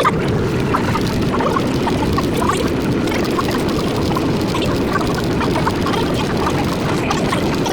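A century-old IRT Lo-V subway train running along the track: a steady, loud rumble and rattle, dotted with brief squeaks and clicks.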